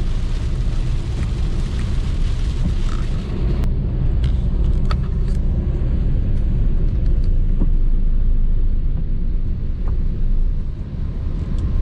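Maruti Suzuki Ciaz driving at about 60 km/h: a steady low rumble of road and engine noise. For the first few seconds the hiss of rain and wet road runs over it, then drops away sharply at about three and a half seconds, leaving the rumble with a few faint ticks.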